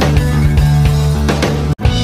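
Background music with a steady beat over sustained low notes. It cuts out for a split second near the end, then carries on.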